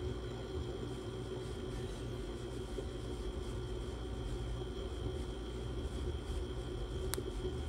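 Long, steady draw on a cartridge vape pen held for a 'blinker'. It is heard only as a low steady rumble with a faint high whine, and one short click near the end.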